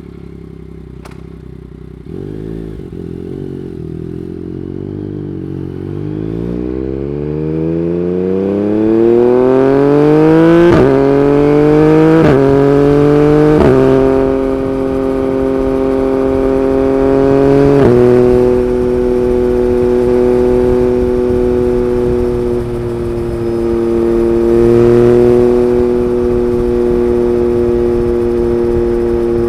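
Yamaha MT-09 gen 3's inline three-cylinder through an Akrapovic Racing Line carbon exhaust, running at low revs and then accelerating with a steadily rising pitch. Four quick upshifts follow with the quickshifter, each an abrupt drop in pitch, the first three close together and the last a few seconds later. The engine then settles into a steady cruising note.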